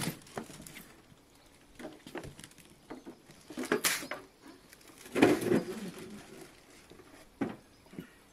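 Unpacking noise as a boxed cordless lawn mower in plastic wrap is lifted out of its cardboard box and set down: scattered rustles of plastic and cardboard, with knocks from the mower's body and wheels. The loudest burst comes about five seconds in.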